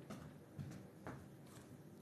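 Three faint, short knocks or clicks over quiet room tone.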